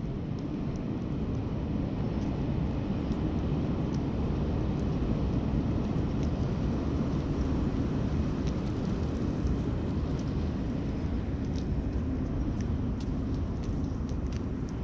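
A steady low rumble of outdoor background noise, with faint light ticks on top.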